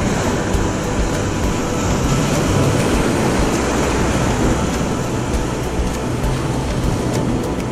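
Wind buffeting the microphone over breaking surf: a steady rushing noise with a heavy low rumble.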